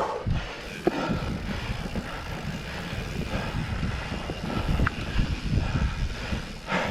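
Mountain bike ride: a steady low rumble of wind on the microphone and tyres on the trail, with a few clicks and rattles, and the rider breathing hard near the start and again near the end.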